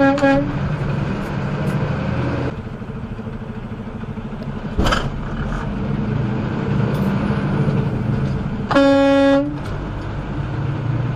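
A vehicle horn honks several times in quick short taps at the start, then gives one longer blast of under a second near nine seconds in. Underneath, a semi truck's engine runs with road noise heard from inside the cab, and there is a brief click about five seconds in.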